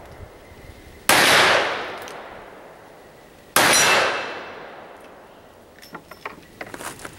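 Two magnum revolver shots about two and a half seconds apart, each a sharp crack followed by a long echo that dies away over a second or more. A few light clicks and knocks near the end.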